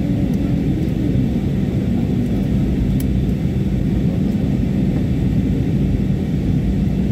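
Steady low rumble of a jet airliner in flight heard from inside the passenger cabin: engine and airflow noise.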